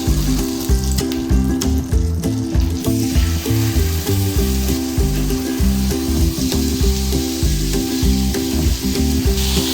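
Ribeye steak sizzling steadily as it fries in butter in a frying pan, with background music of low held notes underneath.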